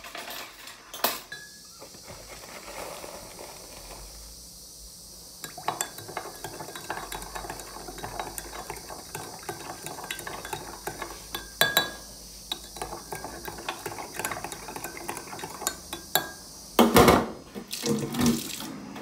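Kitchen sounds: water running with dishes and cutlery clinking, then a few louder knocks near the end.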